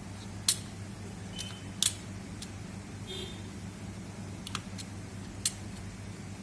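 Scattered sharp clicks and taps of small tools and parts being handled during laptop repair work, about six spread over several seconds, with a brief ringing tick about halfway through. A steady low electrical hum runs underneath.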